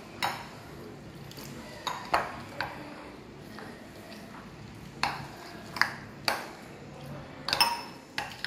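Steel spoon stirring thick maida-flour batter in a glass bowl, clinking against the glass about ten times at uneven intervals, each clink ringing briefly.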